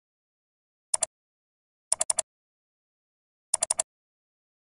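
Computer mouse clicks in quick groups of two to four, about a second or more apart: double-clicks opening folders in a file dialog.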